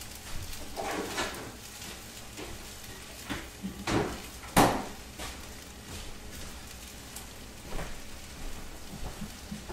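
Fried rice and egg sizzling in a skillet while a silicone spatula stirs and scrapes through it, with scattered clicks and a few sharp knocks, the loudest about four and a half seconds in.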